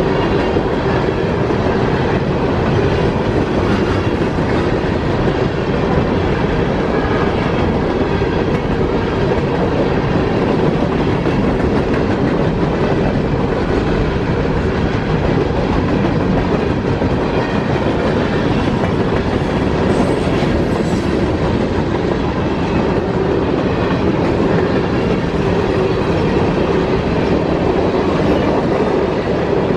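Freight train of hopper cars rolling steadily past a grade crossing. Loud, continuous noise of steel wheels running on the rails.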